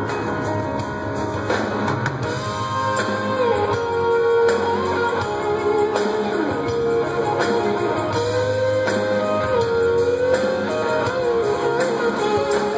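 A live rock band playing, with long held guitar notes that bend and slide over drums and bass.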